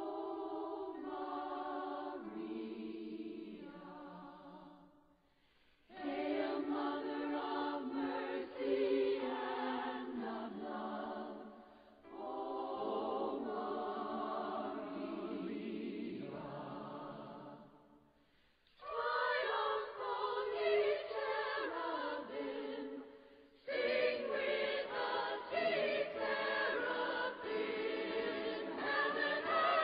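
A cappella choral singing: several voices in harmony singing long held phrases with vibrato, broken by a few short pauses between phrases.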